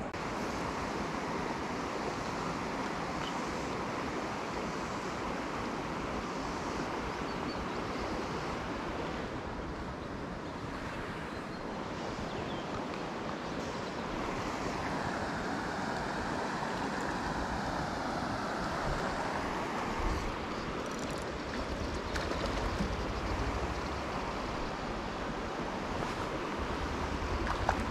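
Steady rush of flowing river water. From about two-thirds of the way in, a low rumble of wind on the microphone joins it.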